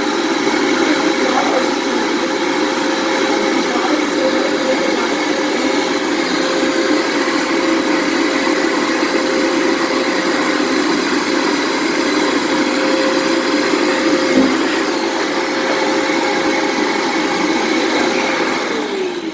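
American Micronic 1600 W wet & dry vacuum cleaner motor running in blower mode, blowing air over the freshly washed filter to dry it. It runs steadily with a high whine, then is switched off near the end, the whine falling in pitch as the motor spins down.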